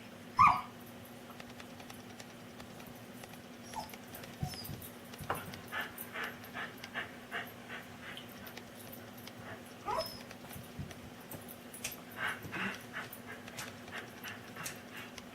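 A pet dog whining and yipping in short calls, upset at being refused food from the table. A sharp yip about half a second in is the loudest sound, another short call comes near the middle, and runs of quick short noises come in between.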